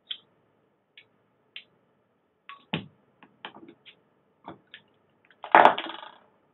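A metal bottle opener clicks and scrapes against a beer bottle's crown cap, with a sharper knock a few seconds in. Near the end the cap pops off with a sharp click and a brief hiss, the loudest sound.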